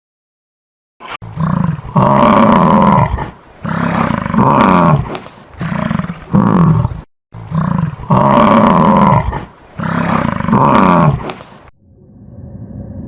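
A large animal calling loudly in a series of long, pitched roars or bellows, the same run of calls played twice. A quieter, steady sound takes over near the end.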